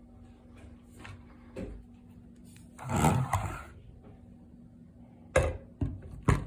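Handling sounds of an AR-15 rifle being moved on a hard surface: a short rub or shuffle about three seconds in, then three sharp knocks or clicks near the end.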